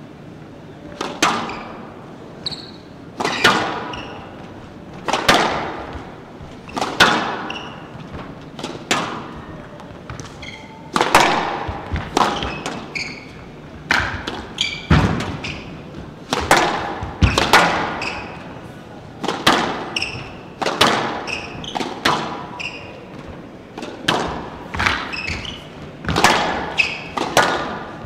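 Squash rally: the ball struck by rackets and smacking off the walls, a sharp echoing crack every second or two, with short squeaks of court shoes between shots.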